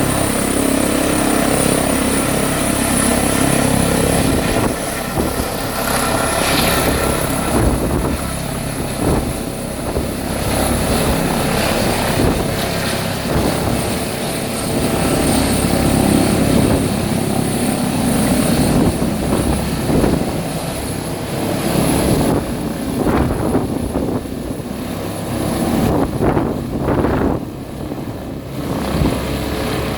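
Airbus H145 (BK117 D-3) twin-turboshaft helicopter running, with a steady rotor and engine rumble under a thin, high turbine whine that rises slightly in the first few seconds.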